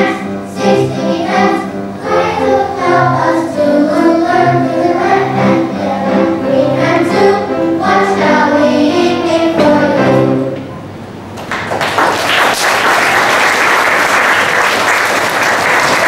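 A group of children singing in unison to backing music. The song ends about ten seconds in, and applause starts a second later and keeps going.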